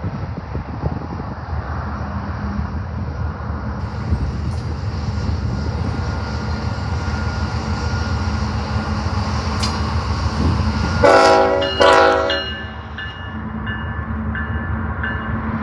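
Union Pacific diesel freight locomotives approaching with a steady, building engine rumble. About eleven seconds in the locomotive horn sounds two short blasts in quick succession as a salute.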